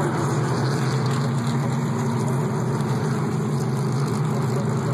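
A pack of NASCAR stock cars' V8 engines running steadily at low speed, as on the pace laps before a race start.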